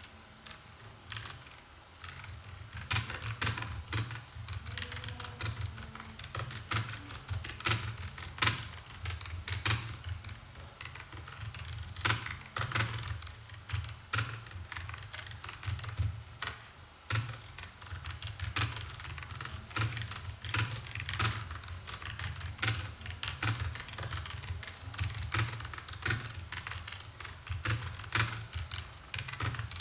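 Fast typing on a computer keyboard: a quick, uneven run of key clicks with brief pauses, as a passage is copy-typed.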